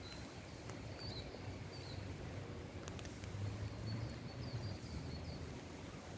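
Small songbirds chirping: short high chirps repeated every second or so, in a quick cluster after about four seconds, over a low steady rumble, with a few sharp ticks.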